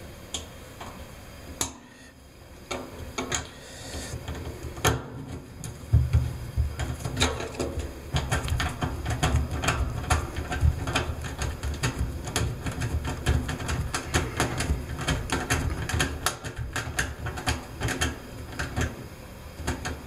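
A screwdriver turning a small screw to fasten a ground wire back down: a few separate clicks at first, then from about six seconds in a dense run of quick, irregular clicks and scraping as the screw is driven.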